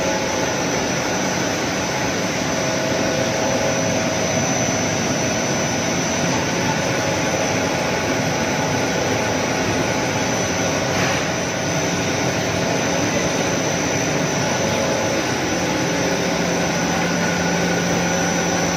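Single-screw snack pellet extruder line running: a steady machine noise with a constant high whine, and a lower hum joining about three-quarters of the way through.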